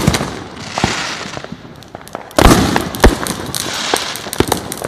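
Fireworks going off: several sharp bangs, the loudest about two and a half seconds in, amid a run of smaller crackles and hiss.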